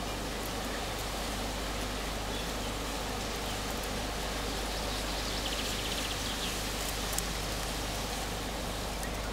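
Steady outdoor background hiss, with a brief faint high trill about six seconds in.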